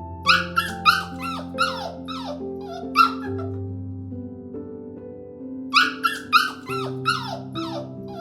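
A small dog barking in quick, high yaps that fall in pitch, in two runs a few seconds apart, over soft background music.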